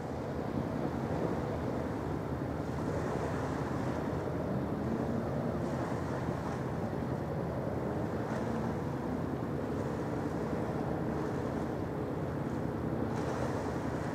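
Steady low rumble of a large passenger ferry's engines passing close offshore, with a faint steady hum under it and brief gusts of wind on the microphone.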